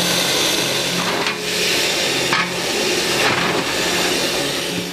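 Loud hiss of steam and hot water jetting from under a miniature live-steam F 444 tank locomotive, with background music playing under it.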